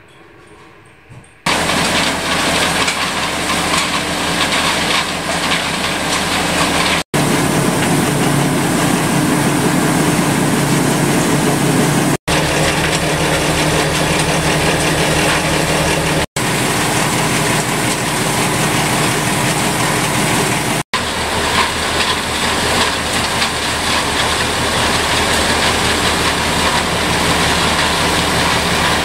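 Stone grist mill running and grinding corn: a loud, steady mechanical rumble with a constant rattle and a low hum. It starts abruptly about a second and a half in.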